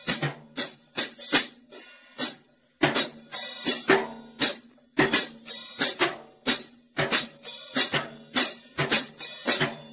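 An acoustic drum kit played with sticks: a run of strokes on the drums and cymbals, about two to three a second, with a short break about two seconds in. A drum's low ring carries on under the hits.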